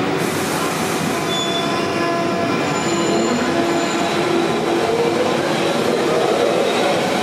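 London Underground 1992 Stock Central line train pulling out of the platform: steady wheel and rail rumble with a whine that rises in pitch as it gathers speed. A few short high wheel squeals come in the first few seconds.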